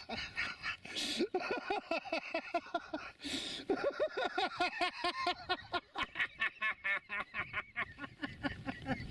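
A man laughing hard and long in rapid, repeated bursts, with two short hissy breaths about one and three seconds in.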